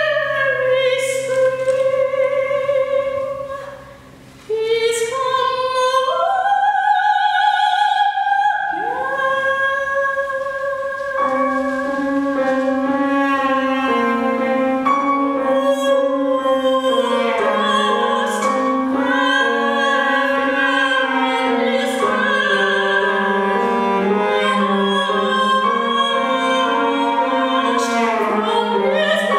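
A soprano singing a slow classical art song with cello and piano accompaniment, holding long notes with vibrato. The music briefly drops away about four seconds in, then the voice returns, and a sustained lower line joins beneath it about eleven seconds in.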